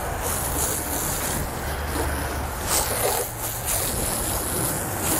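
Garden hose spray nozzle sending a steady stream of water over a soaped car's fabric convertible top and body, rinsing off the wash solution.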